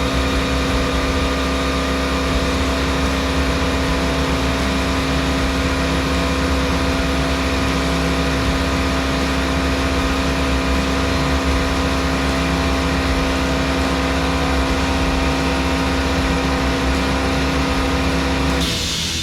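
Steady motor hum with a strong constant tone over a low rumble, unchanging, cutting off abruptly near the end.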